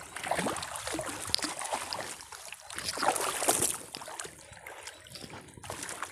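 Water splashing and sloshing around a small boat, first from a wooden paddle stroking the water, then from hands pulling a fishing net alongside. The splashes come irregularly.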